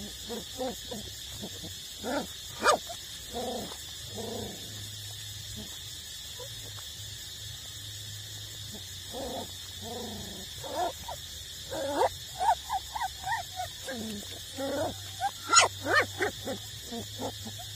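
Young puppies whining and yelping in short, pitch-bending calls. A few come in the first seconds, then a lull, then a busier run of overlapping yelps in the second half.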